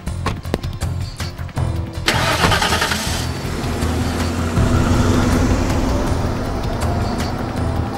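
A few short knocks, then about two seconds in a black Range Rover SUV starts up with a sudden rush of engine and tyre noise and drives off over brick paving. Background music plays underneath.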